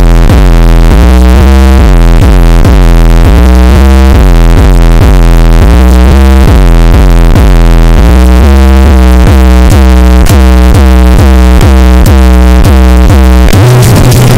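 Heavily bass-boosted electronic music at full-scale, distorted loudness: a synthesizer bass line of short repeated notes, about two to three a second. Near the end it switches to a new section of steady low bass tones.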